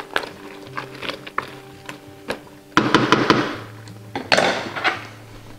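Wooden spoon stirring and knocking against a stainless-steel stockpot of cooked vegetables: a few light taps, then two louder clattering scrapes about three and four and a half seconds in.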